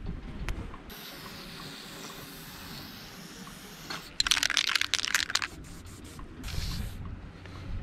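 Aerosol spray-paint can hissing in one burst of about a second and a half, a little over four seconds in, as paint is sprayed onto a wall.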